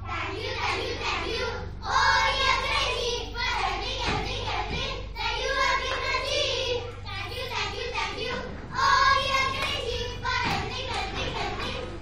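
Children singing, in short phrases with brief pauses between them.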